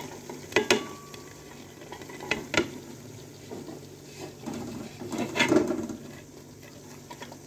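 Green peas and cut green beans tipped off a plate into a metal cooking pot, pattering in, with a few sharp clinks and knocks of the plate and the metal slotted spoon against the pot.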